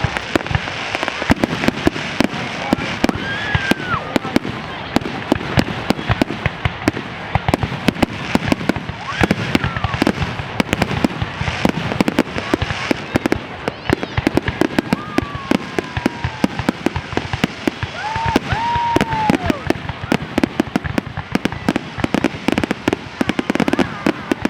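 Fireworks finale: a continuous, rapid barrage of bangs and crackling shell bursts, with a few brief whistling tones rising and falling through it.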